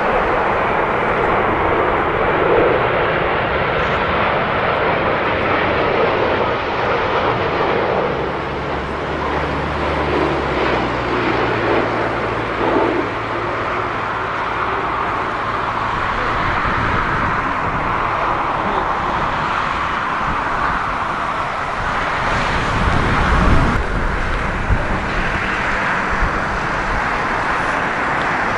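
Jet airliner engines, a steady rushing noise, with a louder low rumble swelling about 23 seconds in.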